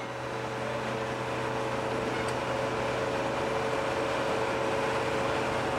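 Steady mechanical drone of an aircraft fuel tanker truck running, a low hum with two steady higher tones over an even rushing noise.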